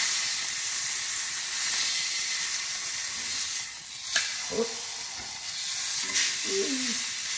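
Beef pot roast searing in hot oil in a skillet, a steady sizzle. A sharp clack about four seconds in, with a few smaller knocks after it, as the roast is lifted and turned with metal tongs.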